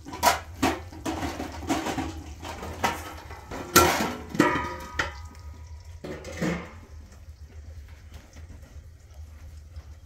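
Metal cooking pots and a large pot lid clanking and knocking together, several clanks over the first seven seconds with one loud clang just under four seconds in, followed by a short ringing of the metal. The handling dies away for the last few seconds.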